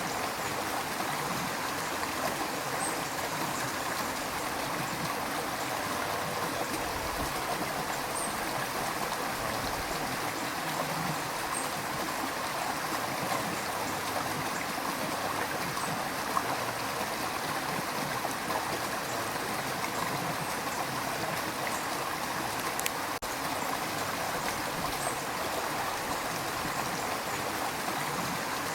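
A river's rushing water flows steadily, a continuous even rush with small gurgles.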